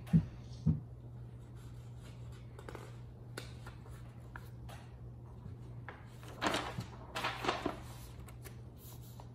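Loose sheets of printed paper rustling as a page is lifted and flipped over, in two short spells about six and a half to eight seconds in. There are a few soft handling thumps at the start, and a steady low hum runs underneath.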